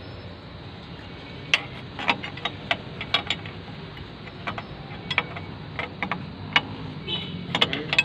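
Sharp, irregular metallic clicks and taps of a wrench working on the bolts of a steel mounting bracket, starting about a second and a half in, over a steady low hum.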